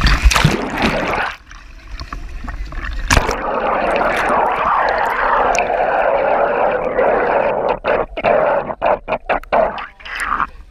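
Pool water splashing and gurgling close to the microphone: a continuous rush of a few seconds, then a run of short, irregular splashes near the end.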